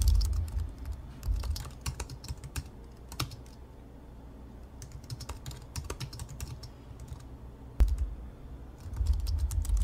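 Keyboard typing sound effect: rapid, uneven key clicks with low thumps underneath, busiest over the first few seconds and again in the last second, sparser in between.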